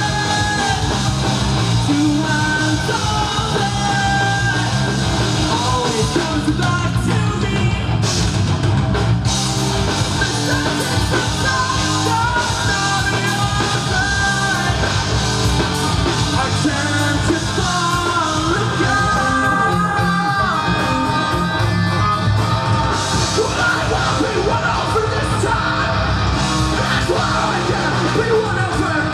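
Live rock band playing loudly: distorted electric guitars, bass and a drum kit, with a vocalist singing and yelling into the microphone over them.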